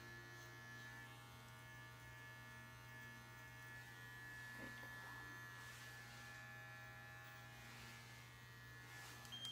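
Electric dog-grooming clippers running with a steady buzz, stopping near the end.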